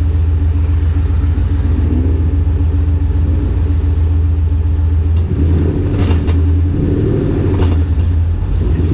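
Car engine running with a steady deep drone, its note shifting about five seconds in.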